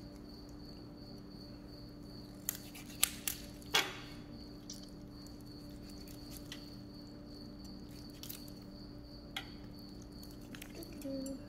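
A kitchen knife cutting between the rib bones of a raw chicken carcass, with a few short sharp crunches of bone: four close together about two and a half to four seconds in, then three single ones spread later. A faint steady hum sits underneath.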